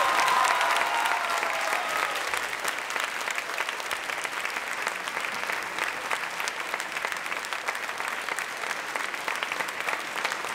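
A theatre audience applauding: dense, steady clapping that eases a little over the first couple of seconds and then holds at one level.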